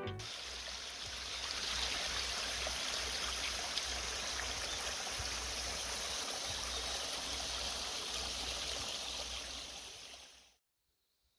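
A steady rushing noise, even across high and low pitches, with a wavering low rumble beneath; it stops abruptly shortly before the end.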